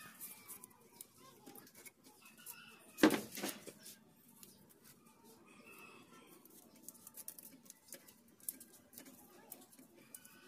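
Handling noise from electrical wires being twisted and connected at a thermostat inside a wooden incubator box: scattered light clicks and rustles, with one louder knock about three seconds in.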